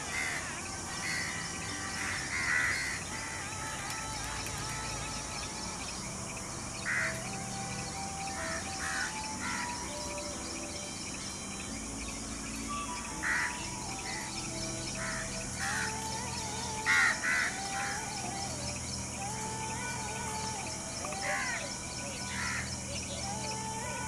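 Calm background music mixed with forest ambience: birds giving short, sharp calls every few seconds, the loudest a quick pair about two thirds of the way through, over a steady high insect hiss.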